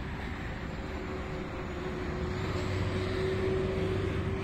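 Vehicle engine running steadily, a constant hum with one held tone, growing a little louder about three seconds in.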